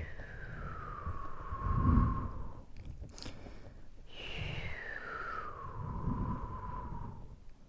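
Close-miked ASMR mouth and breath sounds: two long blows of breath, each carrying a faint whistling tone that slides down in pitch, with breath rumbling on the microphone and a wet mouth click between them.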